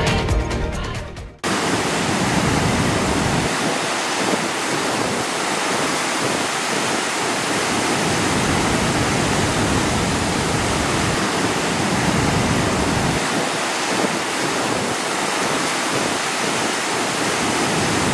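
Music ending about a second in, then the steady roar of Murchison Falls, the Nile River pouring through its narrow rock gorge.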